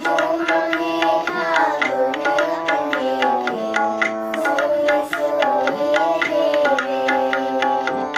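Shabad kirtan music: tabla playing a steady beat of about four strokes a second under sustained harmonium chords, with a gliding melody line above.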